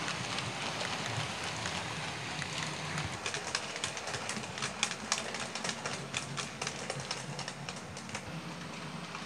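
Model railway train of keg wagons running on the track, with a low rumbling hum at first, then from about three seconds in a rapid, uneven run of light clicks as the wheels pass over the rail joints.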